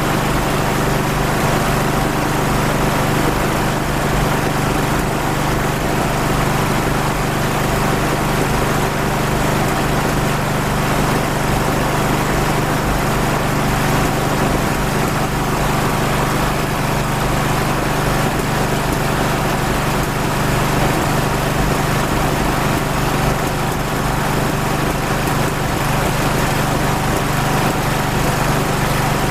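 Engine running steadily at an unchanging speed, fed by a water-based fuel mixture that its makers claim is 99% water.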